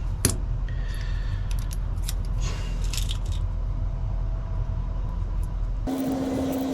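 Small metallic clicks and clinks of lock cylinder parts being handled during rekeying, the sharpest just after the start, over a steady low hum. Near the end the hum stops suddenly and a steady low tone takes its place.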